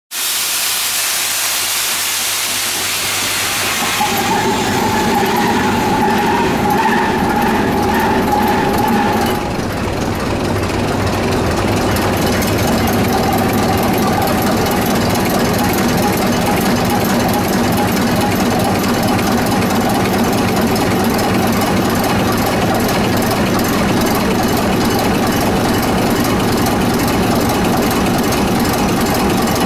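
SEMT Pielstick PC4 18-cylinder diesel engine starting: a loud hiss of starting air for about four seconds, then the engine fires and runs with a heavy, fast, even pulse. A whine rides over it for the first several seconds of running.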